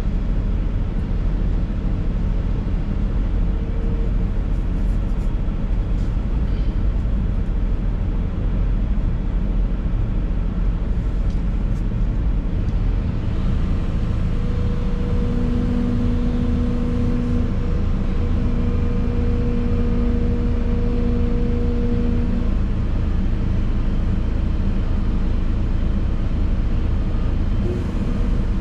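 Excavator's diesel engine running steadily under work, heard from inside the cab. A steady whine comes in about halfway through and holds for about seven seconds before dropping away.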